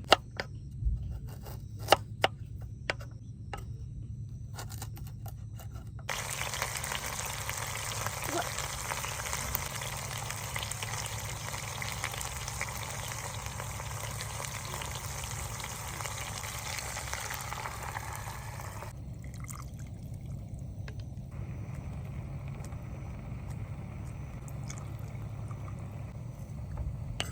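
A few light clicks and knocks, then a steady watery hiss for about thirteen seconds that stops suddenly, over a low steady hum.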